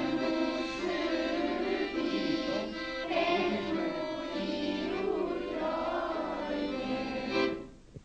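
A children's choir singing a melody, cutting off about seven and a half seconds in.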